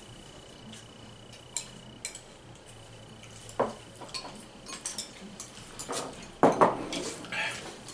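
Spoons clinking and scraping against cereal bowls while people eat: irregular short clinks, busier and louder from about six seconds in.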